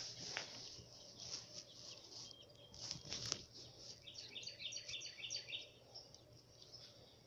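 Faint birdsong: quick runs of short, high chirping notes, busiest about four to five and a half seconds in.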